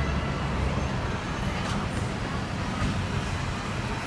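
Hong Kong double-decker electric tram running along its street track, heard from the upper deck: a steady low rumble of the motors and wheels on the rails, mixed with the surrounding street traffic.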